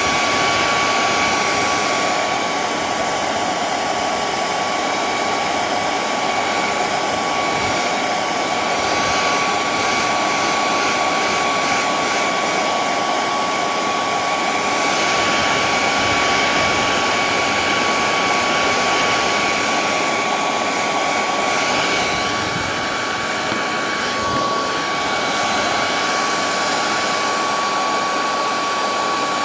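Hair dryer running steadily, blowing hot air over a car stereo's circuit board, a constant rush of air with a steady whine in it.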